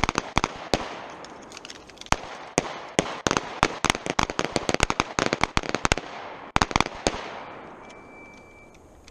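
Pistols firing together from a line of shooters on a range: a rapid, uneven string of many shots with echoing tails, stopping about seven seconds in.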